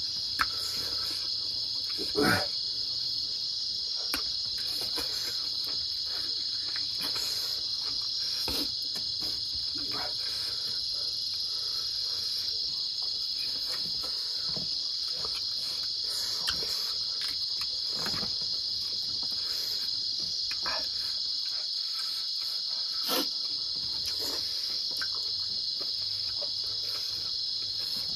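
Steady high-pitched chorus of night insects, likely crickets, chirring without pause, with a few short smacks and clicks from eating by hand.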